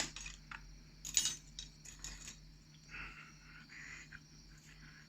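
Small metallic clicks and light taps, a few sharp ones in the first couple of seconds: tiny lock pins and tweezers being handled while the pins are reloaded into a disassembled five-pin lock.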